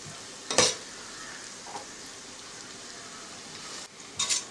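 Sliced onions and green chillies sizzling steadily in hot coconut oil in an aluminium pressure cooker. A single sharp knock comes about half a second in, and a few quick knocks near the end.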